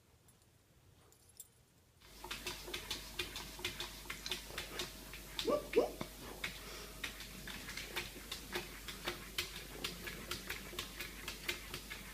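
About two seconds in, a calico cat standing on its hind legs begins batting its paws against a mirror, making rapid, irregular taps on the glass. One short call is heard about three and a half seconds in.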